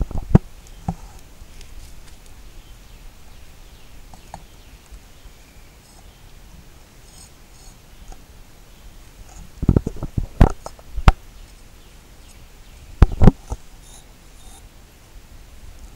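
Concrete retaining-wall blocks knocking against each other as they are set and shifted into place: a few sharp knocks at the start, a cluster of them about two-thirds through, and a quick pair a few seconds later.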